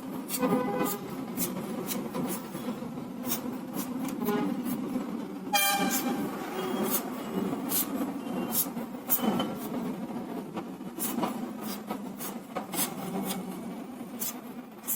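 Vehicle horns honking several times, the loudest about five and a half seconds in, over a steady low rumble of traffic. Sharp clicks and taps run through it.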